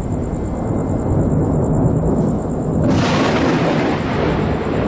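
Thunder rumbling, deep and continuous. About three seconds in, a sharper crack with a hiss comes in and fades over a second or so.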